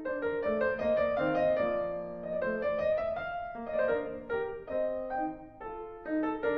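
Background piano music: a light melody of many quick notes over soft chords.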